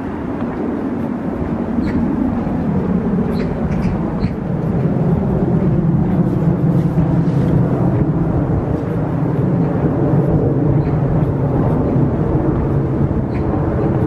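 Steady rumble of distant engines, with a few drifting tones in it, growing louder about four seconds in.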